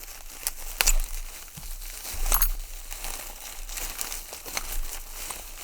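Wrapping on a small bundle being crinkled and pulled open by hand: a continuous crackling rustle with a few sharper snaps, the strongest about a second in and again about halfway through.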